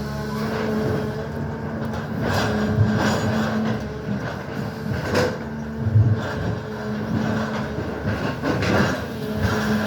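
SANY excavator digging: its diesel engine runs steadily, with irregular clanks and scrapes from the bucket and arm, the loudest about six seconds in.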